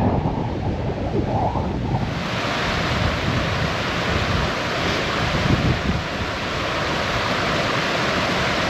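Wind buffeting the microphone in low gusty rumbles; about two seconds in this gives way to the steady rush of a fast, rocky river in spate, white water pouring over boulders, with the wind rumble still underneath.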